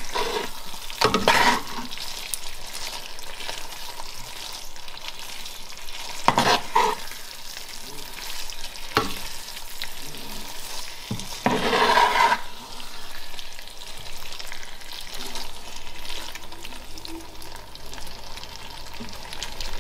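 A slotted spatula stirring pasta through a thick cream sauce in a non-stick frying pan on a hot hob, a steady cooking hiss underneath. Several louder scrapes of the spatula against the pan come and go through it.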